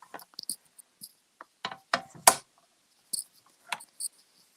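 Scattered light clicks and taps of rubber or clear stamps and small stamping tools being handled on a craft table, with the sharpest knocks about two seconds in.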